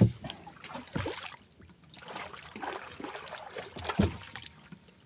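Irregular knocks and rustling scrapes as gear or a catch is handled inside a small wooden outrigger boat, with a sharper knock about four seconds in.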